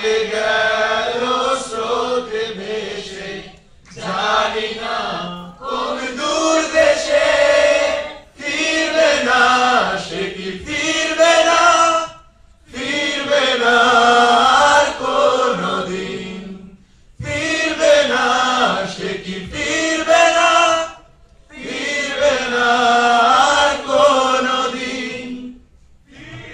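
A large group of young men and women singing a song together as a choir, in phrases of about four seconds with a short breath between each.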